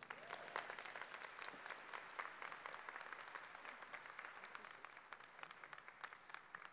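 Audience applauding, heard faintly: a dense patter of hand claps that thins out near the end.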